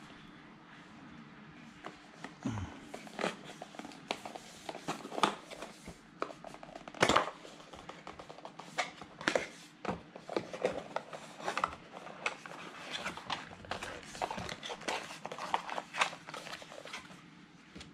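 Cardboard and plastic packaging being handled: irregular clicks, scrapes and rustles as a GoPro MAX camera is worked off its display insert and the inner cardboard box is opened, with one louder knock about seven seconds in.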